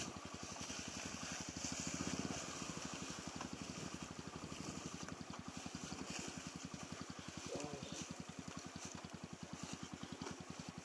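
Yamaha XTZ125's single-cylinder four-stroke engine running at low, steady revs, its exhaust beats evenly spaced.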